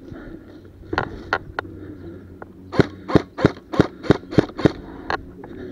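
Airsoft guns firing single shots as sharp pops: a few scattered shots, then a quick string of about seven at roughly three a second, then one more.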